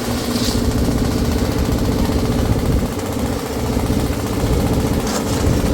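An engine running steadily at a constant speed, with two short high hisses: one about half a second in and another near the end.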